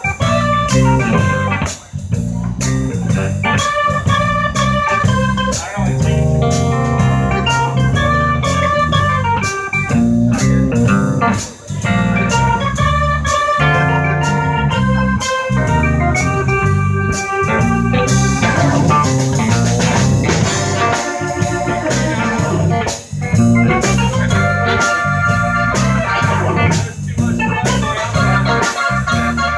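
Live band playing an instrumental break: drum kit keeping a steady beat under bass guitar, electric guitar and keyboard organ.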